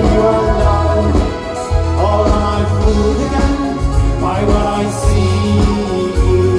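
A live band playing amplified through a PA: electric guitars, bass and drums, with a man singing lead.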